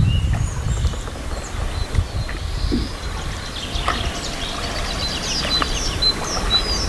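Small songbirds singing from the flooded woodland, a mix of short high chirps and quick trills from several birds, over a steady low rumble.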